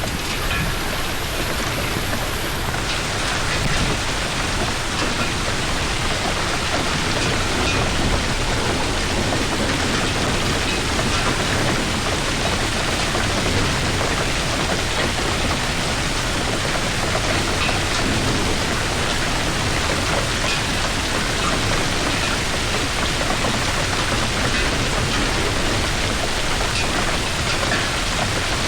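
Hailstorm: a steady, heavy downpour of rain and hail beating on surfaces, with scattered sharper impacts through it.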